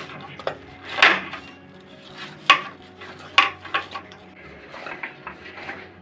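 Soft wheat-flour dough being kneaded by hand in a cut-glass bowl, with several sharp clinks and knocks from the glass bowl as it is pressed and shifted, the loudest about two and a half seconds in.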